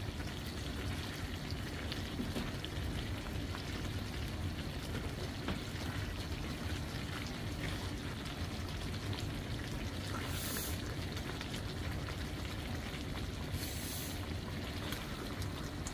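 Chicken afritada's tomato sauce simmering and sizzling in a frying pan, a steady bubbling crackle as it reduces, with two brief louder hisses in the second half.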